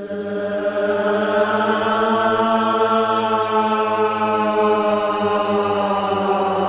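Background music: a single long droning chant-like note with many overtones that swells in just before and holds steady, its pitch sagging slightly near the end.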